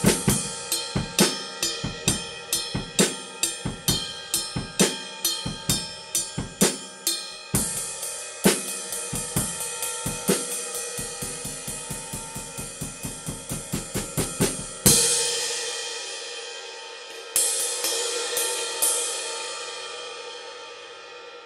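Sabian AAX 21-inch X-Plosion ride cymbal played in a steady drum-kit groove with snare and bass drum. About two-thirds of the way through comes a loud cymbal crash, the drums stop, and the cymbal rings on with two more strikes before slowly dying away.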